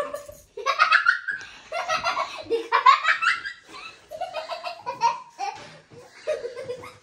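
People laughing, in several bursts.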